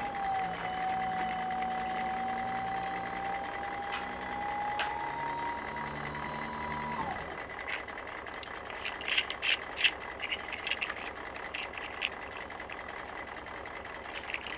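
Small battery-powered toy motor whining steadily, its pitch creeping upward, then cutting off suddenly about seven seconds in. Then a run of sharp plastic clicks from toy pieces being handled.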